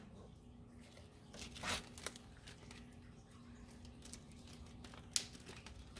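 Clear plastic zip-top bag rustling and crinkling as it is handled, faint, with a short rustle about a second and a half in and a sharp click near the end.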